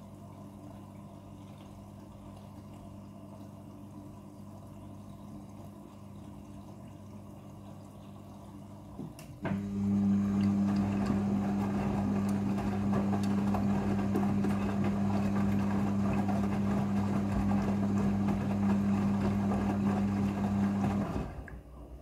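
Midea front-loading washing machine filling with water with a steady hum. About nine seconds in a click, then the drum turns for the first rinse, a louder steady motor hum with the wet laundry tumbling. It stops shortly before the end.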